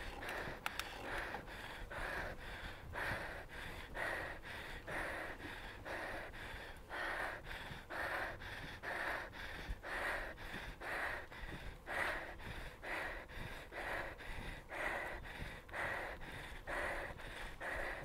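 A cyclist breathing hard under exertion, with quick, even breaths of about two a second.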